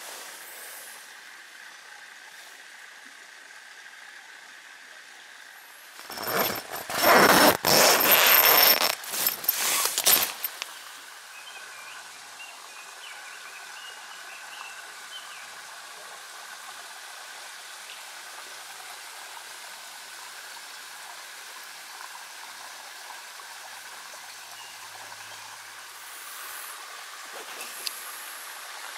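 A loud rushing noise lasting about four seconds, then the steady rush of a mountain stream running over rocks.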